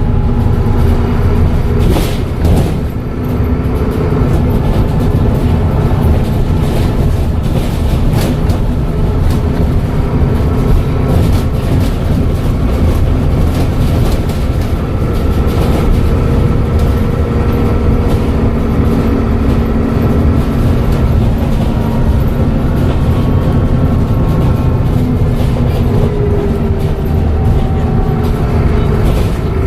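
Dennis Trident double-decker bus with a Voith automatic gearbox under way: a steady loud engine and drivetrain rumble, with faint whining tones that rise and fall as the bus speeds up and slows.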